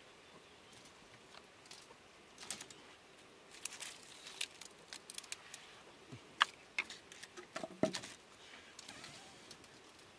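Dry twigs being handled, snapped and laid on a stone hearth: scattered small cracks and rustles, with a few sharper snaps past the middle.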